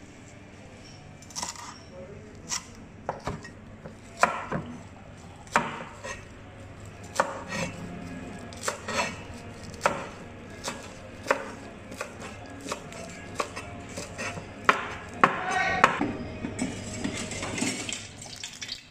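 Large kitchen knife chopping spring onions and celery on a wooden chopping board: separate sharp chops, about one or two a second, at an uneven pace.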